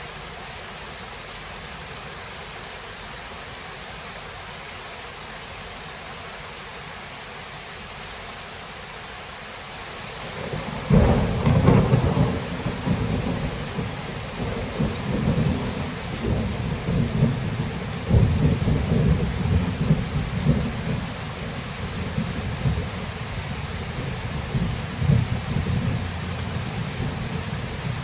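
Steady rain hiss, then about a third of the way in a thunderclap breaks out and rumbles on in rolling surges to the end.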